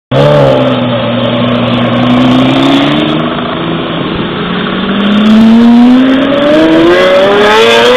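Lamborghini supercar's engine running, holding a fairly even pitch at first and then rising steadily in pitch over the last few seconds as it accelerates.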